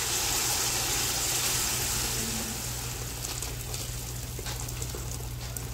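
Water poured into a pot of hot oil, fried onions and whole spices, sizzling and hissing, the hiss fading over several seconds. A few faint clicks come in the second half.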